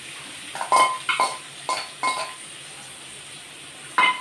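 Steel spoon scraping chopped onions out of a steel bowl into a metal kadhai: four or five short ringing clinks of metal on metal in the first couple of seconds, then one sharp tap near the end, over a faint steady hiss.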